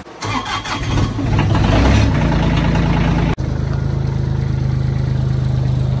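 Bobcat skid-steer loader's diesel engine starting after a glow-plug preheat. It cranks for about a second, catches and rises in pitch, then settles into a steady idle.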